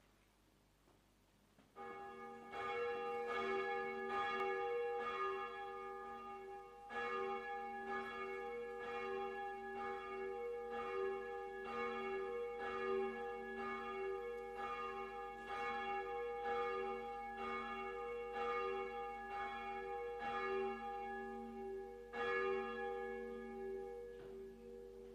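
A single church bell tolling, struck over and over at an even pace from about two seconds in, each stroke ringing into the next, then fading away near the end.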